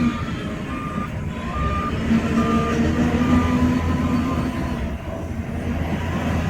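Heavy diesel earthmoving machine running, its engine a steady low rumble, with a backup alarm beeping about once a second as it reverses.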